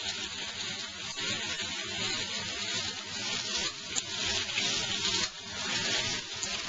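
Eggplant and garlic sizzling as they fry in oil in a pan, a steady hiss, with a sharp click about four seconds in.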